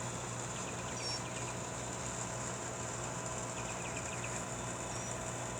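Steady outdoor ambience: a constant high insect drone over a low hum, with a few faint, short bird chirps about a second in and again near the end.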